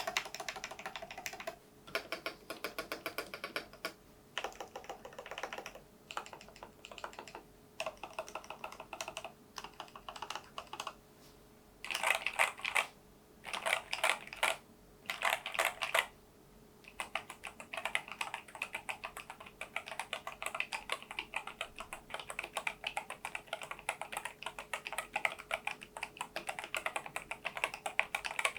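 Typing test on a NuPhy Air96 low-profile keyboard with Gateron LP 2.0 red linear switches, fitted with taller Cherry-profile keycaps. Short runs of rapid keystrokes, four louder dense bursts around the middle, then continuous fast typing. The uploader finds the taller keycaps give the case a hollow ring.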